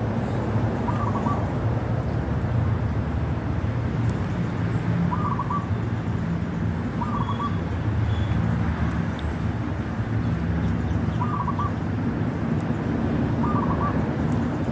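A bird calling outdoors: a short warbled call repeated five times, a few seconds apart, over a steady low rumble.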